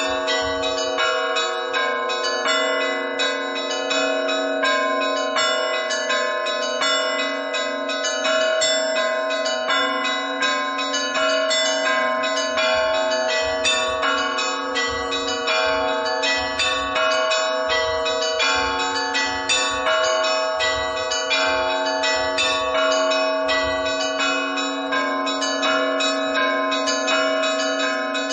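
Orthodox church bells rung together in a continuous peal: quick, repeated strikes of the smaller bells over the steady ringing of the larger ones, with no pause.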